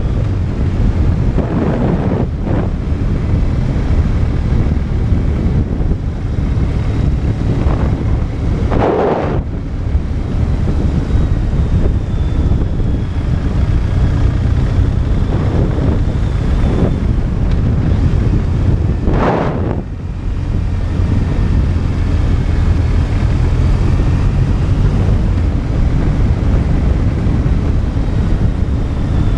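Wind rushing over a helmet-mounted microphone while riding a BMW R 1200 RT. The motorcycle's boxer-twin engine runs with a steady low drone underneath. A few louder gusts of wind buffeting come about a third of the way in and again past the middle.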